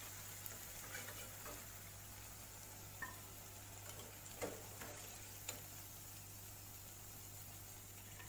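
Dal vadas being lifted out of hot oil in a metal kadai with a slotted spoon: a handful of light taps and scrapes of the spoon against the pan, the loudest about four and a half seconds in, over a faint sizzle of frying.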